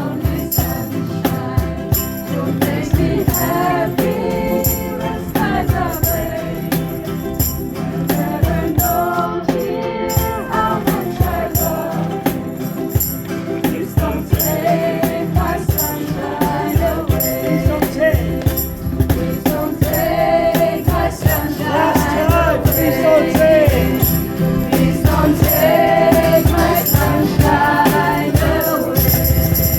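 A group singing along to strummed ukuleles, with jingling hand percussion keeping time.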